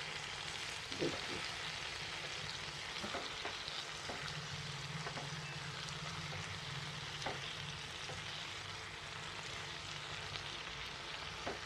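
Eggplant sabzi sizzling steadily in a pan over the flame while a spatula stirs and turns it, with a few soft scrapes and taps against the pan. The dish is fully cooked and being tossed at the end of cooking.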